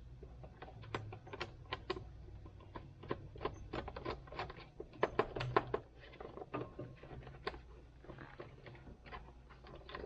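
Irregular plastic clicks, knocks and rattles as the steering-column trim panel is worked loose by hand.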